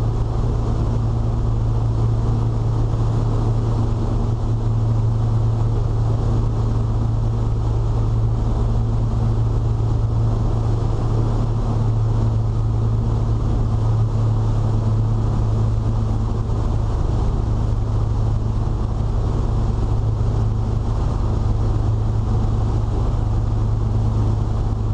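A 2000 Sea Ray 340 cruiser under way, its engines giving a steady, unbroken low drone with a rushing noise of water and wind over it, heard from inside the boat's canvas-enclosed cockpit.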